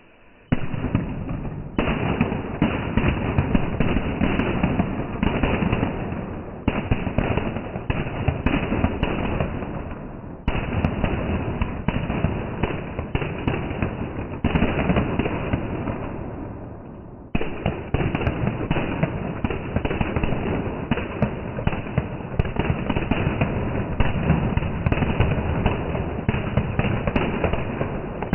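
A string of red firecrackers going off in dense, rapid crackling, starting about half a second in, with the sound slowed down in slow motion so it comes out deep and dull. The crackle drops and surges again several times.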